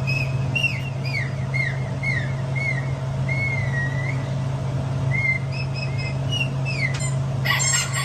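A string of about a dozen short, high whistled chirps, most gliding downward, with one longer held note about halfway through, over a steady low hum.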